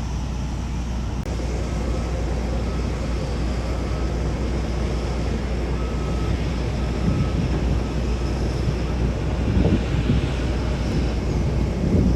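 Jet airliner engines running, a steady rumble that slowly grows louder, with wind buffeting the microphone.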